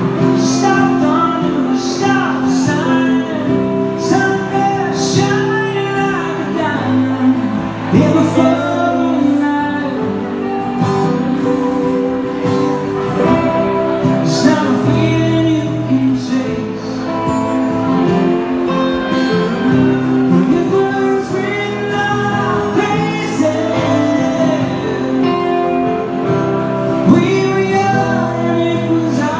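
Live rock band playing a slow song: a man singing over a strummed acoustic guitar and an electric guitar.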